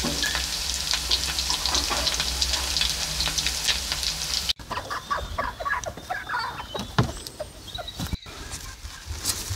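Meat pancakes sizzling and crackling in a pan of hot oil. About halfway through, the sizzling cuts off and is replaced by short clucking calls of hens, with a sharp knock near the end.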